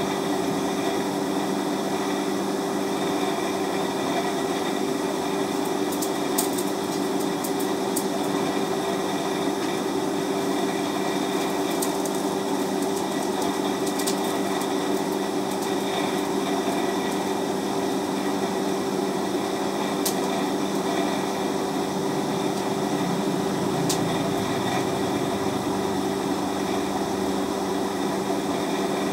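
Steady hum of a machine motor running at constant speed in a blacksmith's workshop, with a few light clicks and taps now and then.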